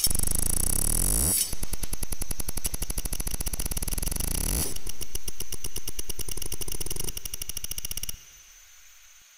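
Experimental electronic composition played over loudspeakers: a dense, rapid pulsing of glitchy clicks over heavy bass that cuts in abruptly. The bass drops out about halfway through, and the texture falls away to a faint remainder near the end.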